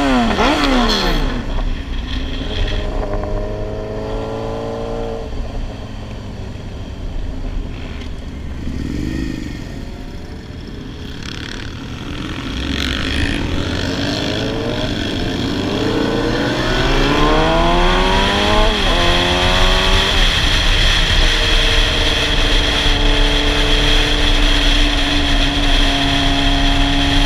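Sportbike engine accelerating through the gears: pitch falls at the start, climbs in a few pulls, eases off for a while, then climbs again to a gear change before settling into a steady cruise. Wind rushes over the microphone at speed.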